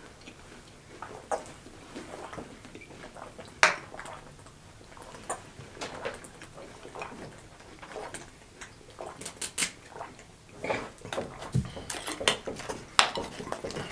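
Thin plastic water bottle crackling and clicking in the hand as a man drinks from it, with scattered sharp clicks and one louder click a few seconds in. Near the end a denser run of crackles as the bottle is handled at the cap.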